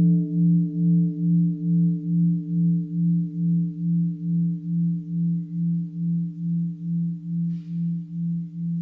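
A mindfulness bell's ring dying away slowly, its low hum pulsing about three times a second.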